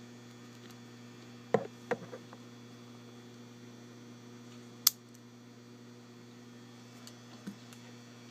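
Steady electrical mains hum, with a few light clicks and taps from a padlock and small flashlight being handled: a cluster of three or four clicks about a second and a half in, and one sharp click near the middle.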